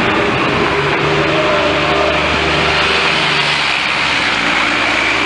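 Nova Bus LFS city bus's diesel engine accelerating as the bus pulls away from the stop.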